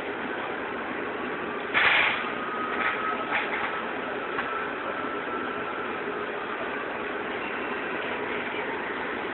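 Steady street noise with an idling engine, and a faint high tone that slowly rises and falls over several seconds. A brief loud burst of noise comes about two seconds in, followed by two smaller ones.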